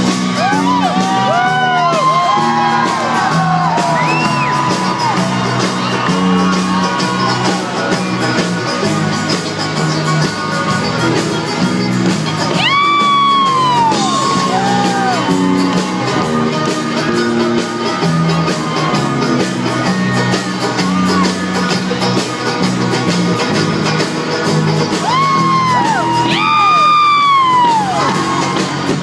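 Live band playing an instrumental stretch of an upbeat folk-rock song on banjo, acoustic guitar, electric bass and drum kit, in a large hall. Audience members whoop loudly over it near the start, again about midway and again near the end.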